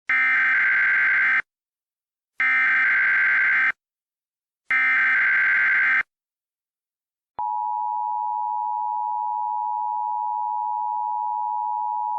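Emergency Alert System alert opening: three short bursts of the SAME digital header, a harsh screeching data sound each lasting about a second and a half, then, about seven seconds in, the steady two-tone EAS attention signal holding on.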